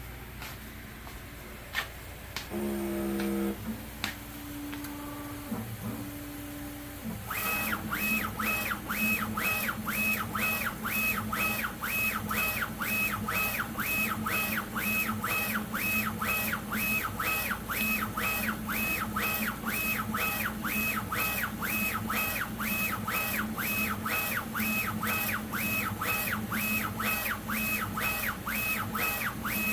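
Refinecolor RF-TS2 direct-to-garment printer starting a print job: a few clicks and a short motor hum, then from about seven seconds in the print-head carriage sweeps back and forth in an even rhythm about twice a second, with the same whine on every pass over a steady low hum.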